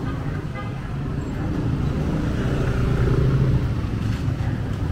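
Street traffic: a motor vehicle's engine running close by over a general city-street din, growing a little louder about three seconds in.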